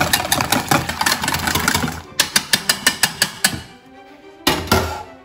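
Wire whisk beating soft butter into a wine and shallot reduction in a stainless steel bowl, whipping sour butter: a fast run of clicks and scrapes against the metal, about six strokes a second at its quickest. It goes briefly quieter about four seconds in.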